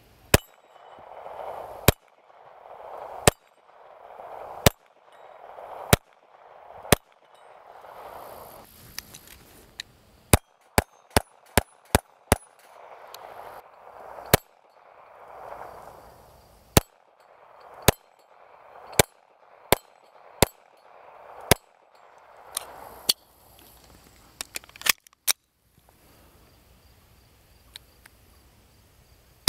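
Walther CCP compact 9mm pistol being fired outdoors in a long string of single shots: at first evenly spaced about a second and a half apart, then a quick run of about six shots about ten seconds in, then irregular shots that stop about 25 seconds in. A hiss swells up between shots.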